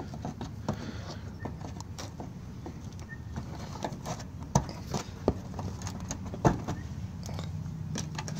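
Flat-blade screwdriver prying plastic push-pin retainers out of a plastic wheel-well liner: scattered scraping and small clicks, with a few sharper clicks in the second half.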